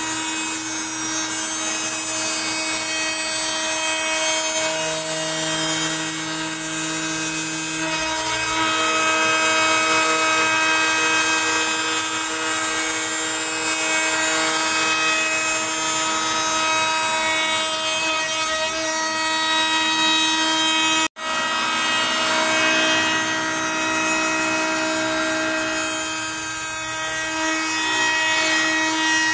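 Makita compact router spindle on a CNC machine running at speed while a surfacing bit planes the face of a softwood board: a steady whine over the noise of the cutting. The sound briefly cuts out about 21 seconds in, then the same running carries on.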